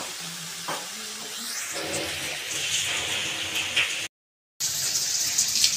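Boiled cauliflower florets frying in hot oil in a kadai, a steady sizzling hiss that grows louder about halfway through. The sound cuts out for about half a second roughly four seconds in.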